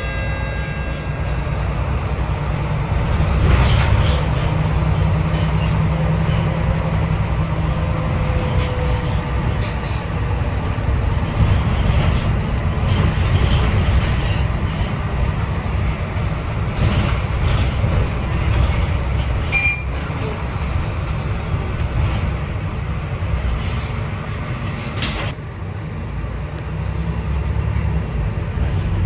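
MAN NL323F diesel city bus under way, heard from inside the cabin at the front: steady low engine and road rumble with frequent rattles and knocks. About 25 seconds in there is a sharp knock and the rumble eases briefly.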